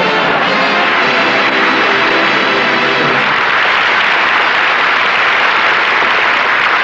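Audience applause at the end of a sitcom episode, over the closing theme music. The music's notes stand out for the first three seconds, then the applause carries on steadily.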